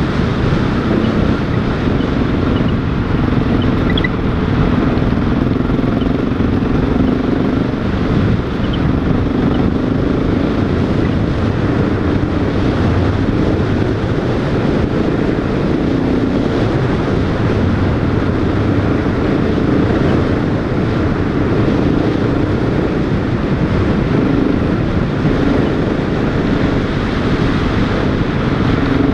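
Motorcycle engine running steadily while riding a gravel track, its pitch wavering slightly with the throttle over a constant rumble of road noise.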